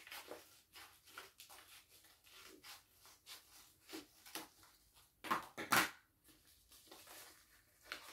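A yellow padded paper mailer being cut with scissors and torn open by hand: a run of short snips and crinkling rustles, with one loud rip a little after five seconds in.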